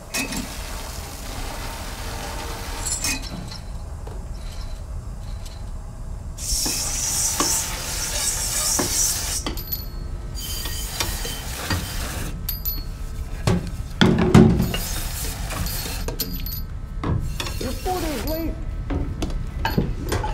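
Dishwashing at a kitchen sink: a metal pan scrubbed with a steel scouring pad, with clinks and knocks of metal dishes and a few seconds of loud hissing about six and a half seconds in.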